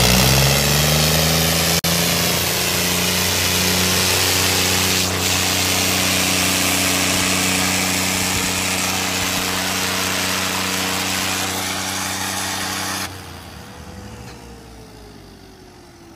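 Tractor diesel engine running hard under heavy load, typical of a tractor tug-of-war pull. Its pitch climbs at the start and then holds steady. About 13 seconds in the sound drops abruptly to a quieter engine whose pitch falls away.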